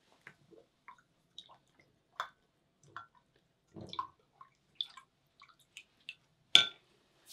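Paintbrush being rinsed in a pot of water between colours: scattered small splashes and drips, with one louder knock near the end.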